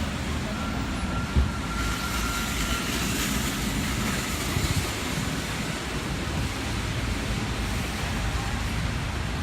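Steady low rumble of city street traffic, with one brief knock about a second and a half in.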